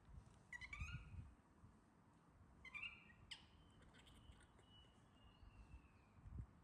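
Baby monkey giving a few faint, high squeaky calls that rise and fall, then a long thin whine that slowly drops.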